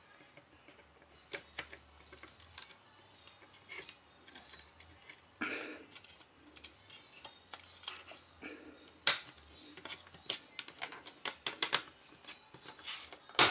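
Light plastic clicks and taps from the two halves of an 8-track tape cartridge shell being fitted and pressed together by hand. The clicks are sparse at first and come thick and fast near the end.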